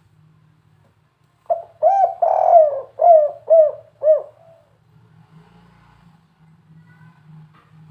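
Spotted dove cooing one phrase of its 'kuk 3' call about a second and a half in: a short note, a longer drawn coo, then three short separate coos about half a second apart.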